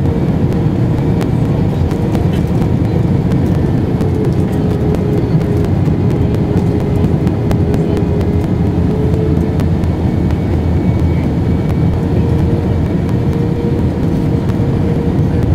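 Airliner cabin noise in cruise, heard through the passenger window: a steady rush of engine and airflow noise with a low hum held beneath it.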